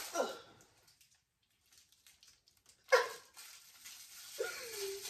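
A few short wordless vocal sounds, each falling in pitch: a brief one at the start, a sharper one about three seconds in, and a longer curving one near the end.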